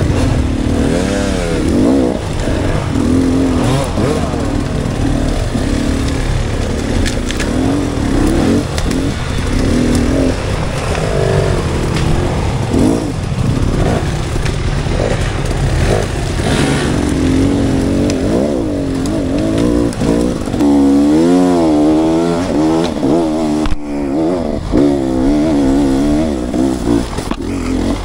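Off-road dirt bike engine running under load on a trail, its pitch rising and falling quickly as the throttle is worked, with the quickest swings in the last third.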